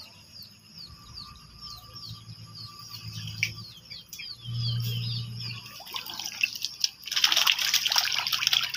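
Fish splashing and thrashing at the surface of a small tarp-lined pond as they crowd for food. The splashing breaks out loudly about seven seconds in. Before that, a string of high, quick falling chirps repeats a few times a second.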